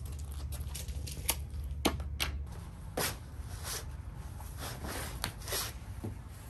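Heavy canvas tent fabric rustling as it is shifted by hand, with scattered sharp clicks and taps from a metal hand-held grommet punch tool being picked up and set against the canvas.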